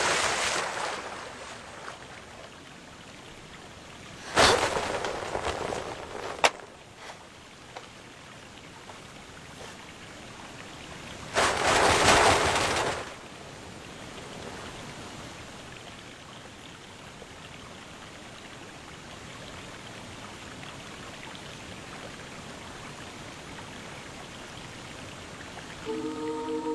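Steady rush of a waterfall, with two louder bursts of rushing noise, about four and eleven seconds in. Music begins right at the end.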